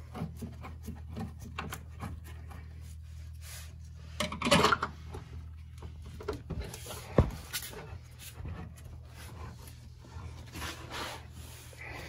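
Hands fitting a car's rear trailing arm and its mounting bolts: small metallic clicks and rubbing scrapes from handling the parts. There is a louder scrape about four and a half seconds in and a sharp clink about seven seconds in, over a faint steady low hum.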